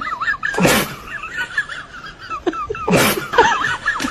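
Two short, sharp bursts of noise, the first about two-thirds of a second in and the second about three seconds in, over a continuous high, warbling chirping.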